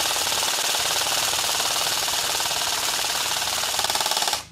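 Airsoft M16 BB rifle firing one long continuous full-auto burst of rapid shots at a graphics card, cutting off abruptly near the end.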